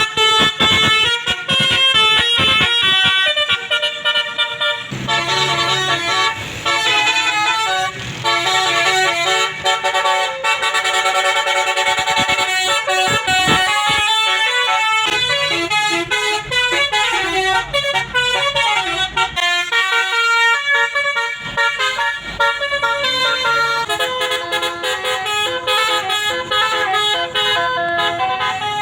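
Basuri musical air horns on a bus playing a 'telolet' tune: many horn notes stepping quickly up and down in a melody, with a low hum underneath at times.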